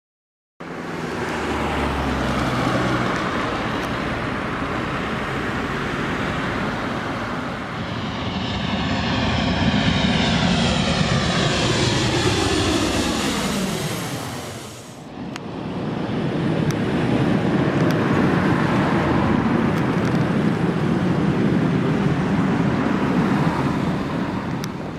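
Boeing 737-800 jet airliner landing, its CFM56 turbofans loud and steady as it comes in. The engines' whine falls steadily in pitch as the aircraft passes close by about fourteen seconds in, then a steady jet noise carries on.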